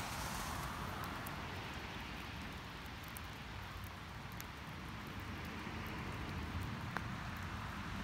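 Quiet outdoor ambience: a steady low rumble and hiss with scattered faint ticks, one slightly sharper about seven seconds in.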